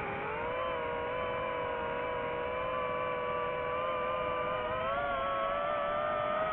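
Drone's electric motors and propellers whining steadily, the pitch rising slightly about five seconds in as the throttle changes.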